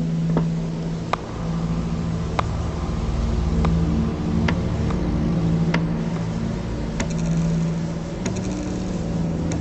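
Horror ambience sound effect: a dark, steady low rumbling drone with held low tones, punctuated by sharp clicks about every second and a quarter, the last two trailing off in short rattles.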